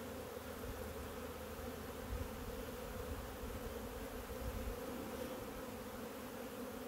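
Honeybees buzzing in a steady hum around an open hive as a frame is lifted out for inspection; the colony is calm.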